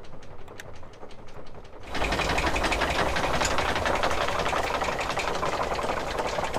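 Anchor windlass hauling in the anchor chain: it starts abruptly about two seconds in and runs steadily with a rapid clattering of chain.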